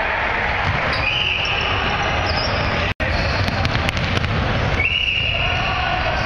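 Basketball being dribbled and bouncing on a hardwood gym floor during play, with players' voices ringing around the hall. The sound cuts out for an instant about three seconds in.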